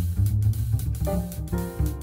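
Background music with guitar, bass and drums and a steady beat.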